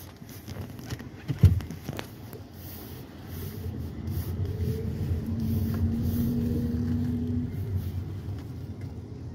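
A car's engine and tyres heard from inside the cabin as it creeps forward a short way on a wet street, the engine note rising and then falling over several seconds. A single thump about a second and a half in.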